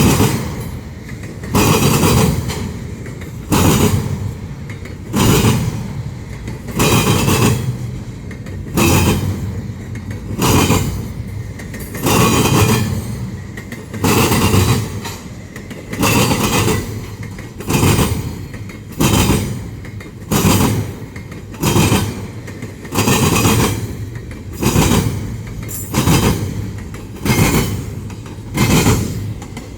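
Intermodal freight train rolling past, its wheels clattering on the rails in loud bursts that repeat steadily about once every second and three-quarters.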